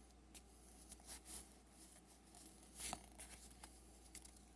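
Faint handling of trading cards: soft clicks and brief rustles as the cards are sorted through, with a slightly louder rustle about three seconds in.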